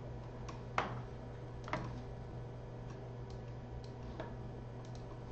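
A few light, scattered taps or clicks, the loudest about a second in and just before two seconds, with fainter ones later, over a steady low hum.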